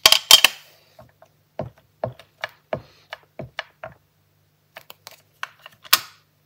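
Clear stamps and an acrylic stamping block being handled on a craft table: sharp clicks and taps of hard plastic. A loud clatter of clicks comes first, then a run of light taps about two or three a second, with one louder click near the end.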